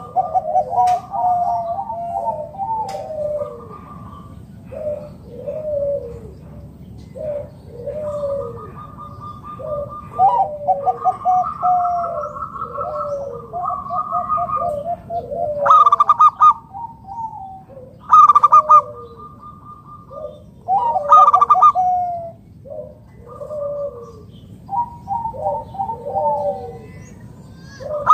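Zebra doves (perkutut) cooing: runs of short falling coos over a level trilled note, with several louder calls in the middle.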